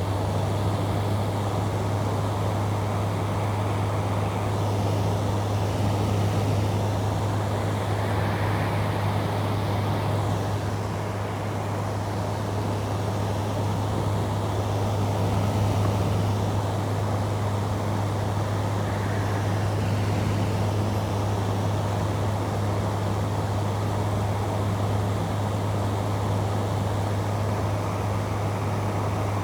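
Window air conditioner running: a steady low hum under an even rush of fan air.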